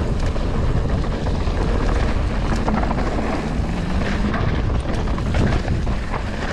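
Norco Sight full-suspension mountain bike rolling fast down a dirt trail: a steady rumble of tyres and wind buffeting the microphone, with a few sharp clacks of chain and bike parts over bumps.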